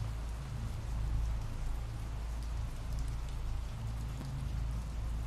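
Steady rain falling: an even hiss with a low rumble beneath and scattered ticks of single drops.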